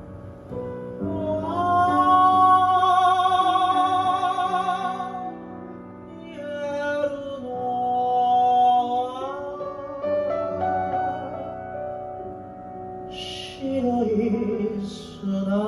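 A singer and piano performing a ballad. The singer holds two long notes with wide vibrato, then moves into a lower phrase near the end, over a sustained piano accompaniment.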